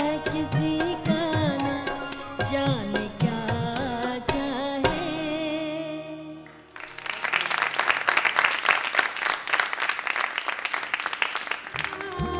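A woman's ghazal singing with tabla accompaniment ends about five seconds in, the last instrumental notes dying away; then a studio audience applauds for about five seconds.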